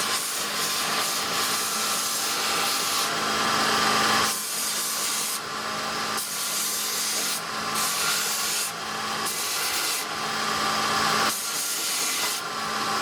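PH 454 knife-making belt grinder running its abrasive belt, a continuous rushing, rubbing sound over a faint steady hum. The sound changes every second or two as the running belt is pushed and twisted sideways, and it keeps tracking on the wheels.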